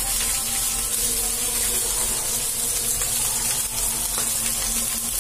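Brown rice sizzling as it fries in a hot metal wok: a steady, even hiss.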